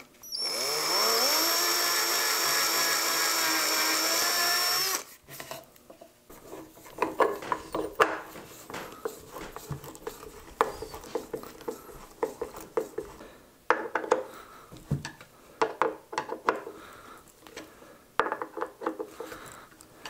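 Cordless drill spinning up and running steadily for about four seconds at a 1/2-inch pipe floor flange on a wooden block, then stopping. After it come scattered clicks, taps and scrapes of a hand screwdriver turning screws into the flange.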